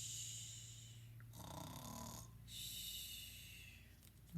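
A person imitating snoring, playing at sleep: a long breathy hiss, a lower snore about a second and a half in, then another long breathy hiss.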